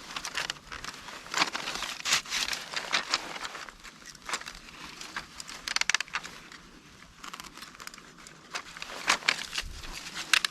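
Dry split bamboo strips rustling and clattering against each other as they are handled and gathered into a bundle, with many irregular sharp clicks and crackles.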